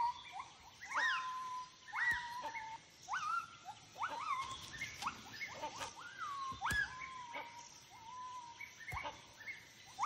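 Gibbons calling in a territorial song: a series of whooping notes, about one a second, each swooping up in pitch and then falling back to a held note.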